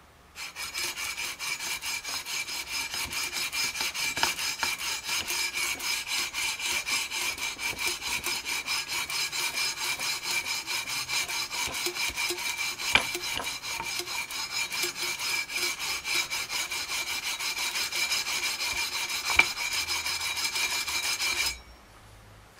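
Long aluminium fret-leveling beam faced with 320-grit sandpaper, rubbed back and forth along the EVO gold fret wire of a guitar neck to level the frets. Quick even strokes, about three a second, with a steady high ringing over the scraping and a couple of sharp clicks. It stops about a second before the end.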